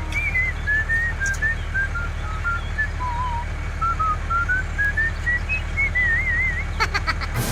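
A whistled tune: short notes that step down and then climb back up, with wavering trills in the middle and near the end, over a steady low rumble.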